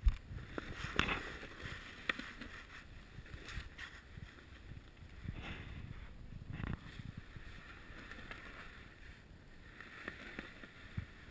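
Irregular soft crunches, rustles and bumps of a person moving through packed-snow tunnels with a handheld camera: snow underfoot and clothing against the snow walls, with camera handling noise.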